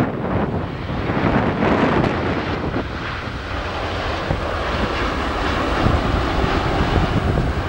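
Jet airliner engine noise, a steady rushing sound, mixed with wind buffeting the microphone.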